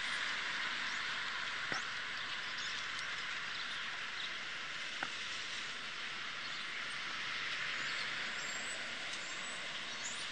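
Steady, even hiss with a couple of faint clicks.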